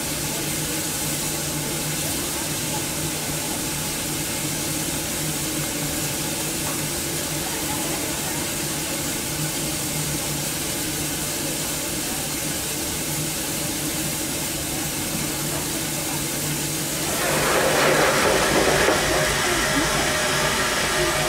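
Steam hissing steadily from a Vulcan 0-4-0T steam tank locomotive, growing louder and fuller about seventeen seconds in.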